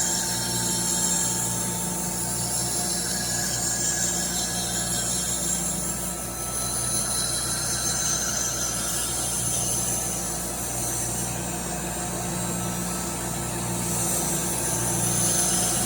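Bedknife grinder running: a steady electric motor hum with the high hiss of the grinding wheel working a reel mower's bedknife.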